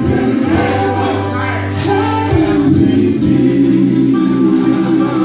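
Live band music with a singer: steady bass notes and cymbal strikes about twice a second under a wavering vocal line.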